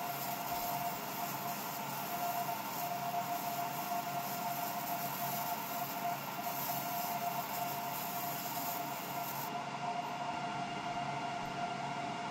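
UV galvo laser engraver running as it cuts felt: a steady whirring hum with a constant tone. A high hiss in it drops out about nine and a half seconds in, while the hum continues.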